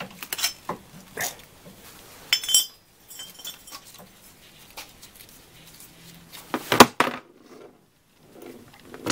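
Metal hand tools clinking and knocking against the engine block as a wrench loosens the 10 mm-headed coolant drain plug: scattered sharp clinks with a brief ring, and one loud metallic clank about seven seconds in.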